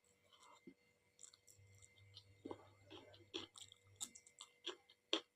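Faint mouth sounds of someone chewing soft dal and rice: scattered wet smacks and clicks, with a sharper smack near the end.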